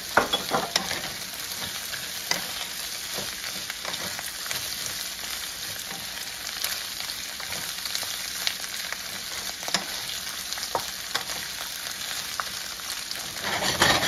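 Sliced carrots, onion and celery sizzling in hot oil in a nonstick frying pan over high heat, stirred with a wooden spatula. A steady frying hiss runs under scrapes and knocks of the spatula against the pan, which are loudest just at the start and again near the end.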